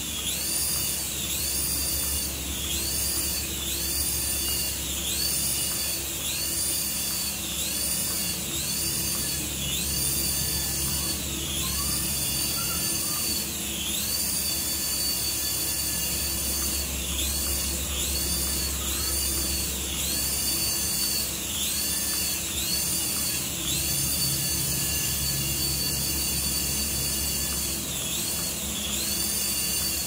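Small electric rotor motors of a toy RC helicopter whining in flight, the pitch rising and falling about once a second as the throttle is worked, holding steady for a couple of seconds now and then.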